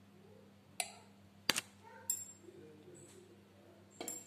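A metal spoon clinking against a non-stick pan while oil is spooned in: four short, sharp clinks with a brief high ring, spread over a few seconds.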